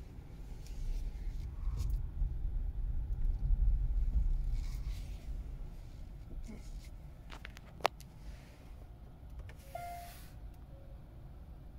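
Cabin of a parked Hyundai Ioniq 5 electric car: a low rumble with a few light clicks and one sharp click about eight seconds in. About ten seconds in comes a short hiss and then a brief electronic tone from the car as it is shifted into reverse.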